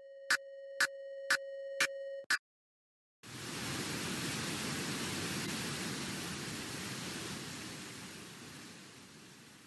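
Synthesized sound effects made in audio software: a steady electronic tone with sharp clicks about twice a second, cutting off a little over two seconds in. After a short silence comes a hiss of generated noise that slowly fades.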